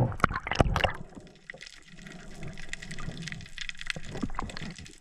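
Water sloshing and rushing around a spearfisher's camera in the sea, with a few sharp knocks and clicks in the first second.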